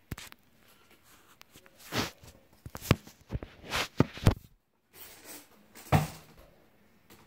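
Handling noise close to the microphone: a series of sharp knocks and taps mixed with short rubbing swishes. The sound cuts out for a moment a little past the middle.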